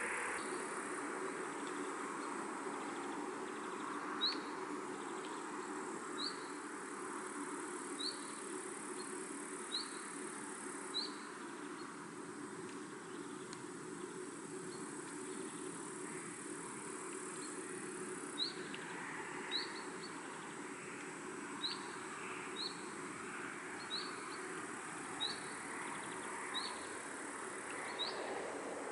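Countryside pond-side ambience: a steady rush of breeze, with a bird repeating a short, rising chirp every second or two and a faint steady high insect-like whine.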